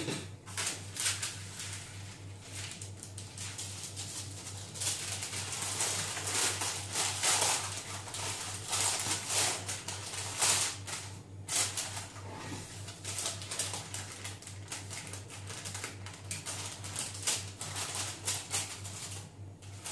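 Baking paper rustling and crinkling as a sheet of rolled shortcrust pastry is handled in it and the paper is peeled back, in quick irregular crackles over a steady low hum.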